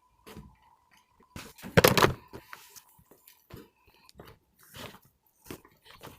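Slime being squished and pressed, giving a run of irregular crackling clicks and pops, loudest about two seconds in.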